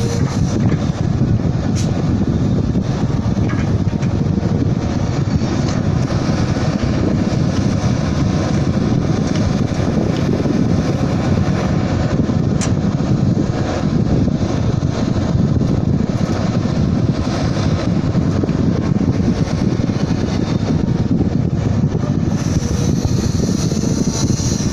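Hitachi EX200 excavator's diesel engine running steadily while loading sand, with a couple of brief sharp clicks.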